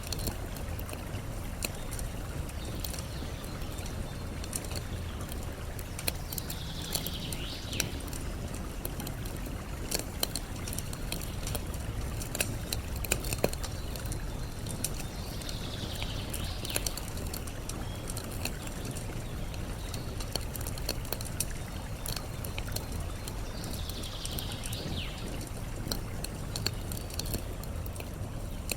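Campfire crackling with frequent sharp pops over a steady low rush of flowing water. A bird's call sweeping downward in pitch comes back about every eight seconds, four times.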